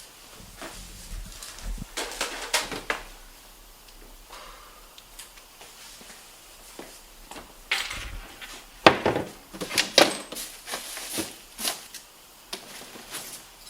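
Scattered knocks, clicks and clatter of objects being handled, with short rustles; a busy cluster about two seconds in and a louder run of knocks from about eight to eleven seconds in.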